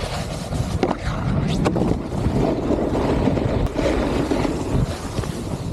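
Snowboard riding over snow: the board scraping and hissing across the snow in a continuous rush, with a few sharper scrapes in the first two seconds.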